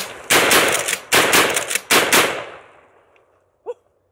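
Standard Manufacturing DP-12 double-barrel pump-action 12-gauge shotgun fired rapidly. The shots come in quick groups about three-quarters of a second apart, pumped between pairs of trigger pulls, and the echo rings out and fades over the last second or so.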